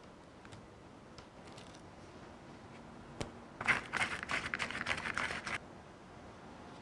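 Small paper candy-kit packet crinkling as it is handled and squeezed: a dense crackle of about two seconds, after a sharp click and a few faint taps.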